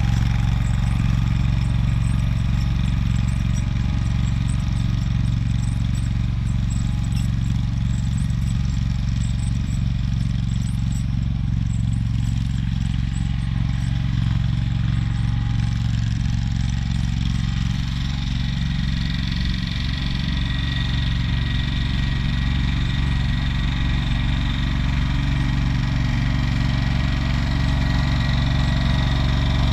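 AGCO Allis garden tractor's engine running steadily while it pulls a tow-behind fertilizer spreader. It grows slightly fainter about two-thirds of the way in as the tractor moves away, then louder near the end as it comes back.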